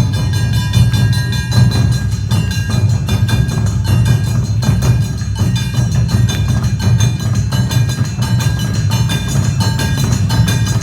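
Awa Odori festival band playing: rapid, evenly spaced strikes of a metal kane gong ringing over taiko drums in a fast, steady beat.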